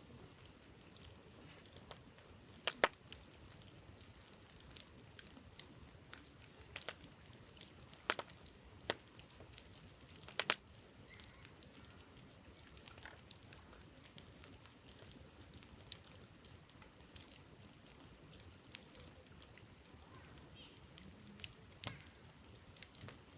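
Wood campfire crackling: irregular sharp pops and snaps over a faint steady hiss, with the loudest pops about three, eight and ten seconds in and sparser crackles later on.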